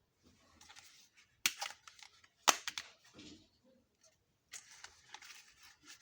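Small plastic toy kitchen pieces being handled: light rustling and ticks, with a sharp click about one and a half seconds in and a louder click a second later.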